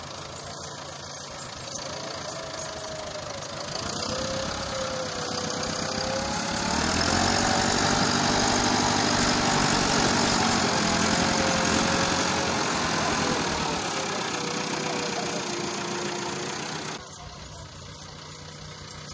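Massey Ferguson 385 tractor's four-cylinder diesel engine labouring hard under the load of a fully laden wood trolley, its pitch wavering up and down as it struggles. It grows louder through the middle and drops suddenly near the end.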